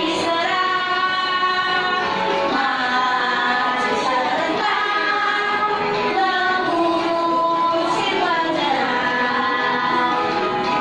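Music: a children's song with a woman singing, and young children singing along.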